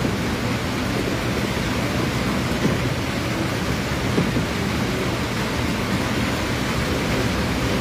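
Fireworks display in a full barrage: many shell bursts and crackling effects going off so close together that they merge into one steady, dense din without a pause.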